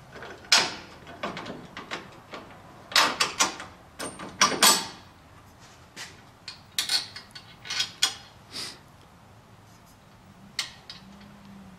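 Metal clanks and knocks as an aftermarket track bar bracket is worked into place on a Jeep JK's rear axle and a new bolt with a spacer is slid through it. The knocks come in short clusters: about half a second in, between three and five seconds, and around seven to nine seconds.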